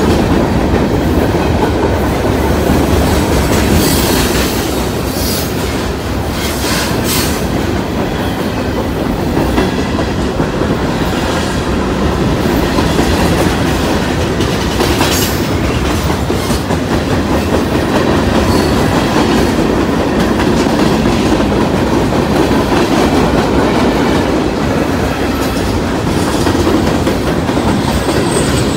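Freight train cars rolling past close by: a steady rumble of steel wheels on rail with clickety-clack over the joints, and a few brief high squeals.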